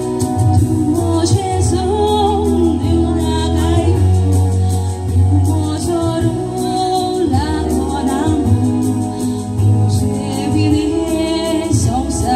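A Konkani song sung live as a duet, the vocal line rising and falling in phrases over sustained keyboard chords and a steady bass.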